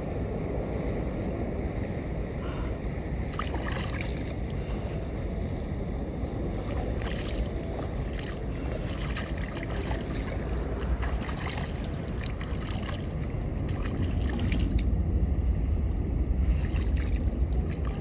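Wind buffeting the microphone over the sea, a steady low rumble with scattered splashing and crackle from the water; it grows louder and gustier in the last few seconds.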